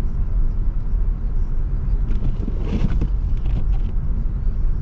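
Steady low rumble of a car driving, with a brief brighter, hissing noise about three seconds in.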